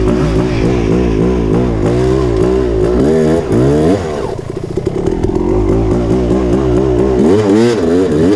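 Yamaha YZ250 dirt bike engine revving up and down under quick throttle changes while riding, the revs climbing sharply about three seconds in and again near the end, with a brief easing off in between.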